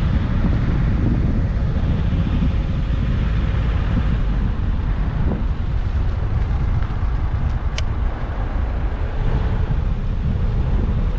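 Suzuki Vitara diesel 4x4 driving along a village road: steady engine and tyre noise mixed with heavy wind buffeting on the bonnet-mounted camera's microphone. A single sharp click about eight seconds in.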